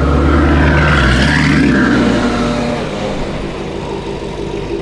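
Twin-turbocharged 2024 Mustang GT's 5.0 V8 running loud under throttle for about two seconds, then easing back to a lower, steady running sound.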